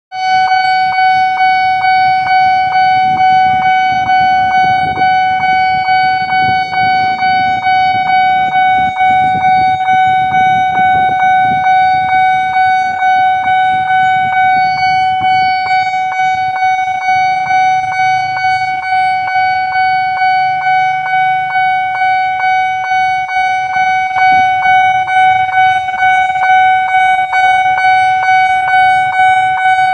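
Railway level-crossing warning alarm sounding: one steady, high electronic tone that pulses in a fast, even rhythm, over a low rumble that is strongest in the first ten seconds or so.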